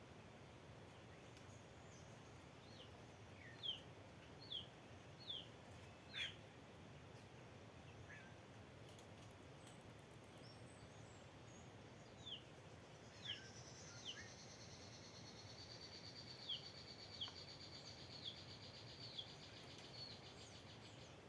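Small birds giving short, high chirps that slide downward in pitch, repeated at irregular intervals over a steady background hiss. About halfway through, a faint, higher buzzing trill joins in and carries on to near the end.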